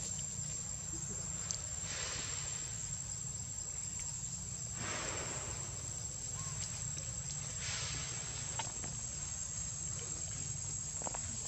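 Insect drone, a single steady high-pitched tone, over a low rumbling background, with three soft rustling swells about two, five and eight seconds in.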